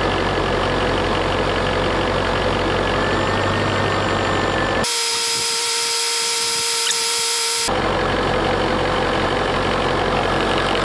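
Petrol car engine idling steadily. For about three seconds in the middle the hum drops away and a steady hiss takes its place.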